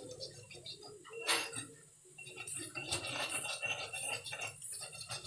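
Pestle grinding a spice paste in a stone mortar (cobek and ulekan): repeated scraping and small knocks, with one sharper knock about a second in.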